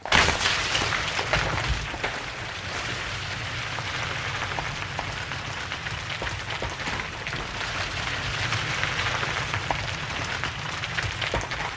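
Rockslide: a dense rumble of tumbling rocks and gravel, thick with small clattering impacts. It starts suddenly at full strength, eases a little after about two seconds, then runs on steadily.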